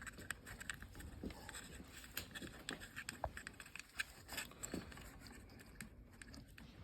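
Faint, irregular small clicks and light scrapes from handling the diode's wire leads and the soldering tool on the blower motor's control board.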